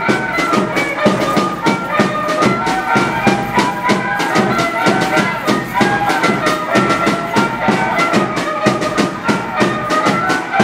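Music for a Mexican danza de apaches: a fast, steady drumbeat of about four to five beats a second under a high melody line.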